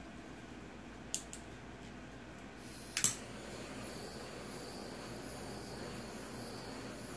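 Small handheld electric mini blower starting up about three seconds in, after a couple of sharp clicks, then running with a steady whir and a faint high whine.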